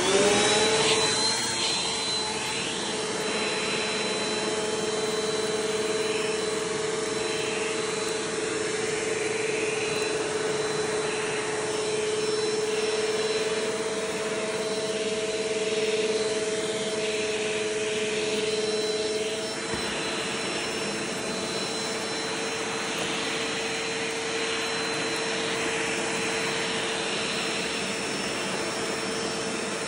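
Vacuum cleaner running with a steady motor whine over a rushing air noise. It spins up as it is switched on and dips briefly about twenty seconds in.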